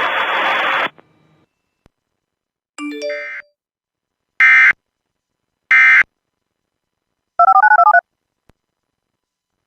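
Emergency Alert System end-of-message signal: two short buzzy digital data bursts a little over a second apart, preceded by a brief electronic chime and followed by a warbling two-tone burst. A hiss of static cuts off about a second in.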